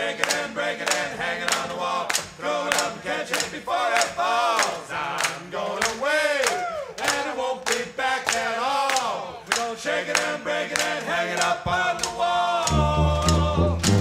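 A group of voices singing together over sharp, regular percussive strikes. Loud drums come in near the end.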